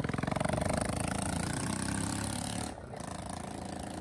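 A vehicle engine running, with a rapid, even pulse.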